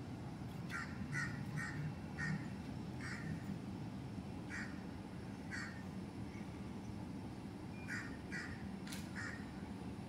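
A bird giving short, harsh calls, about ten of them at uneven intervals, in two groups: a quick run in the first few seconds and another near the end.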